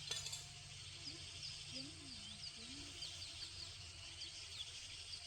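Birds chirping: a long run of short, high, quick calls repeating throughout, with a faint low wavering call about two seconds in.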